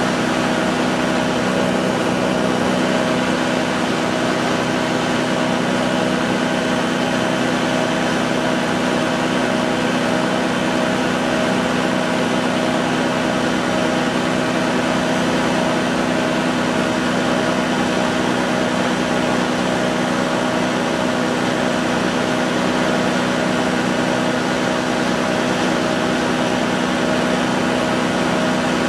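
Light aircraft's engine and propeller droning steadily in level cruise, with a rush of wind noise, heard on board.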